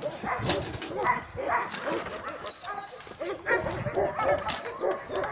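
Dogs barking and yipping, many short calls in quick succession.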